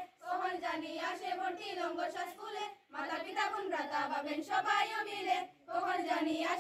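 A group of schoolchildren singing together in unison, in phrases of about three seconds with short breaks between them.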